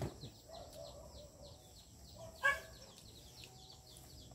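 A chicken clucks once, loudly, about two and a half seconds in, over a steady run of quick high chirps. There is a short thump at the very start.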